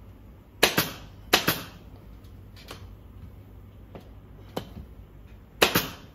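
Pneumatic upholstery staple gun firing several sharp shots at irregular intervals, some in quick pairs, the loudest about half a second in and near the end.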